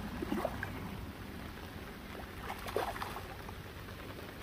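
Steady hiss of light rain on the umbrella and the lake surface, with a few faint splashes as a small hooked carp is played near the landing net.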